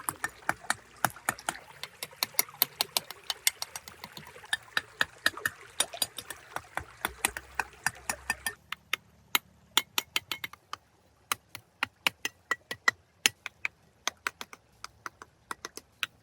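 Water trickling under a run of sharp, quick clicks and taps, several a second. The water stops abruptly about eight and a half seconds in, while the clicking goes on.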